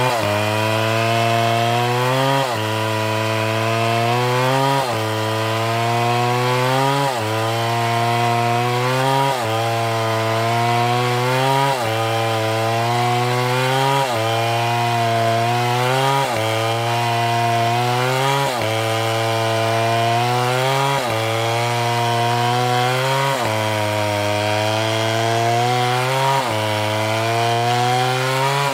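Large STIHL two-stroke chainsaw cutting through a palm log under full throttle, its engine pitch sagging under load and then picking up again about every two seconds.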